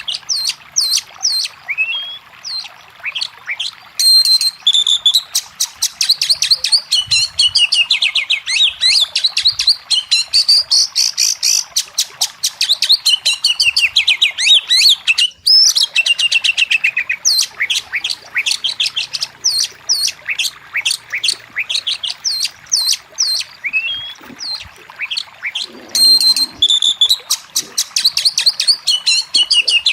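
Oriental magpie-robin (kacer) singing a fast, almost unbroken run of chirps, trills and rapid falling whistled notes.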